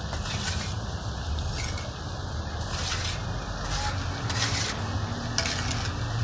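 Hand trowel scraping and spreading wet cement render across a masonry wall in short, irregular strokes, over a steady low rumble.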